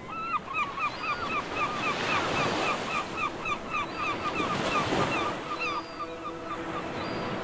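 Gulls calling in a fast run of short, repeated calls, about three a second, that stops about six seconds in, over the steady noise of surf and wind.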